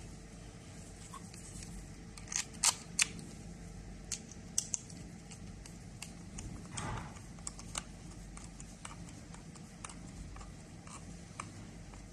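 Scattered sharp clicks and taps of small hard objects being handled, loudest in a quick cluster a couple of seconds in, with a brief rustle about seven seconds in.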